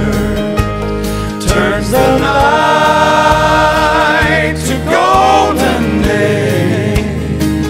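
Gospel song: male voices singing in harmony over instrumental accompaniment, with long held notes and a steady bass.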